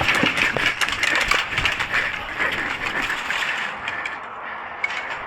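A player running: footsteps and rattling kit with dense clicking and crackling, fading off about three and a half seconds in.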